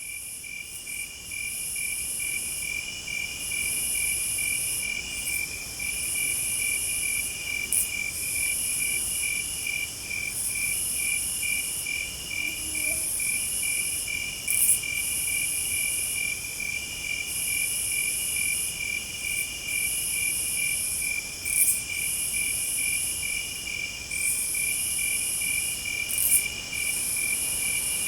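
Night-time forest insect chorus: a steady, fast-pulsing chirp runs under a higher shrill buzz that comes and goes in spells of a second or two. Four brief sharp ticks stand out, spread through the recording.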